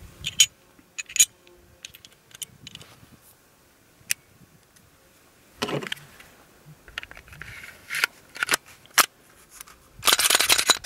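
Clicks and scrapes of a Glock 19 being reassembled by hand: the stainless steel guide rod and recoil spring are seated in the slide and the slide is run back onto the polymer frame, with a longer scraping sound near the end.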